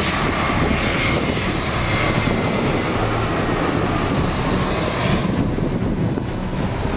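Airbus A320 jet airliner on landing approach, its engines running with a steady rumble and a faint high whine over a hiss. The whine and hiss drop away suddenly about five seconds in, leaving the low rumble.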